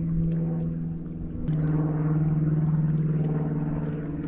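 Boat engine droning steadily; about a second and a half in its pitch drops slightly and it gets louder.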